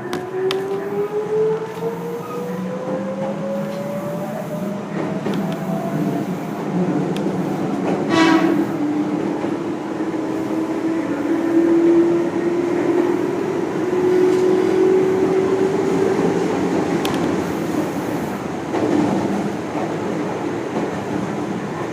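Meitetsu electric train pulling away and gathering speed, heard from inside the carriage: its traction motors whine with a pitch that climbs twice, over a steady rumble of wheels on rail. A short horn sounds about eight seconds in.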